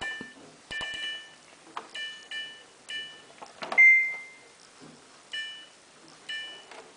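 Samsung WF8804RPA washing machine control panel beeping as its buttons are pressed in service mode: about eight short beeps of a few tones together, scattered irregularly, and one longer single-tone beep about four seconds in, with faint button clicks.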